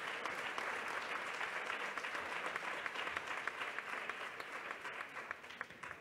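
Audience applauding, the clapping thinning out and fading away near the end.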